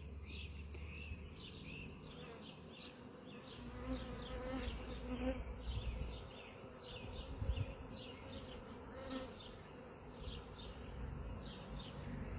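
Honey bees from a swarm buzzing as they fly around in the air, the buzz swelling now and then as bees pass close. A repeated high chirping runs in the background.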